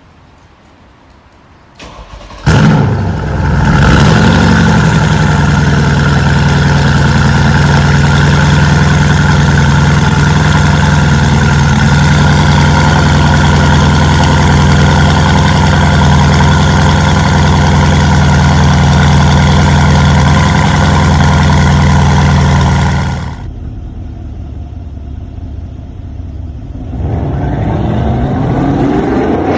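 The straight-piped exhaust of a Mercedes-Benz CLS 63 AMG S twin-turbo V8 starts with a sudden loud flare about two and a half seconds in. It then settles into a steady, loud idle for about twenty seconds. After the sound drops away, a rising rev comes in near the end.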